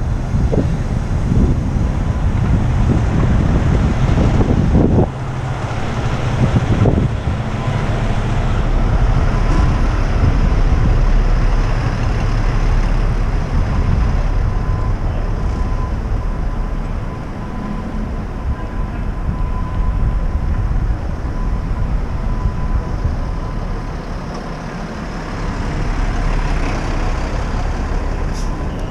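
City street traffic with the steady low rumble of idling fire trucks close by, heard on a cycling helmet camera. Heavy wind buffeting on the microphone for the first five seconds stops abruptly.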